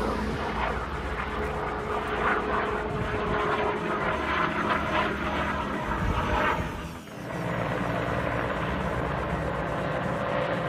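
Helicopter in flight at a distance, its rotor and engine noise rising and falling. About seven seconds in the sound drops away briefly, then a steadier drone takes over.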